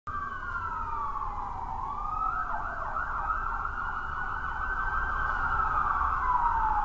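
Siren-like gliding tones over a low hum, an intro sound effect: one tone falls slowly over the first two seconds, then several overlapping tones waver up and down together.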